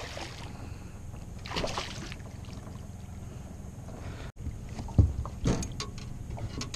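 A hooked bass splashing at the water's surface beside a boat, over a steady low rumble. About five seconds in there is a sharp thump, the loudest sound, followed by a few smaller knocks.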